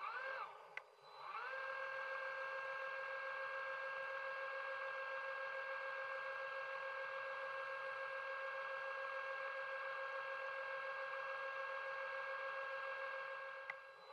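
Electric motor and propeller of an underwater scooter (diver propulsion vehicle) whining underwater: a brief spin-up at the start, then it winds up again about a second in and holds a steady high whine, winding down just before the end.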